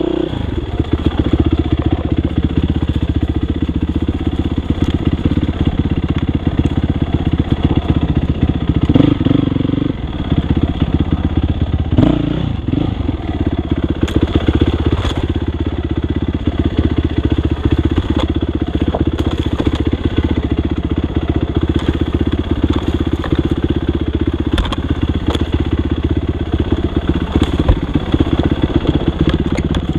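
Yamaha YZ dirt bike engine running under way on a trail, the engine note rising and falling with the throttle and dipping about ten seconds in. Scattered sharp clicks and knocks sound over the engine.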